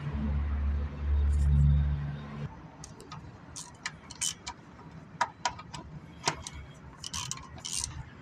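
Sharp metallic clicks and clinks at uneven intervals, with a short rattle near the end, from a wrench working the oil drain plug back into an Isuzu NKR truck's oil pan. The first couple of seconds hold a low rumble.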